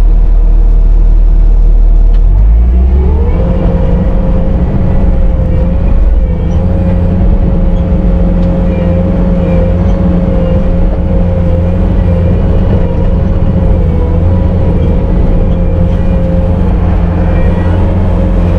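Bobcat T650 compact track loader's diesel engine running, throttled up about three seconds in to a steady higher speed, with a steady whine rising with it and holding as the machine works.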